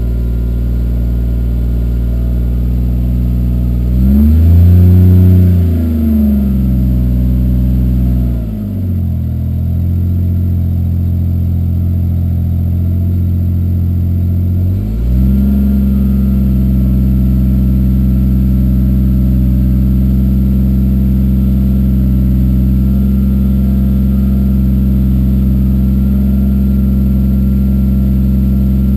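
A swapped 2JZ-GTE turbocharged inline-six in a 1991 Toyota Supra, running through a 3-inch catless exhaust, idling while still cold. It is revved once about four seconds in and drops back. About halfway through the idle steps up and holds steady.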